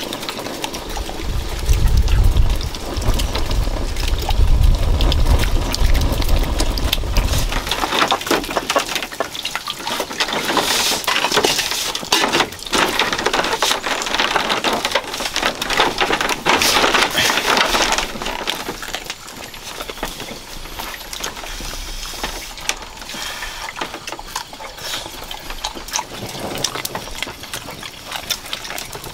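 Wood fire crackling and hissing, with many sharp pops, loudest through the middle. A low rumble runs through the first several seconds.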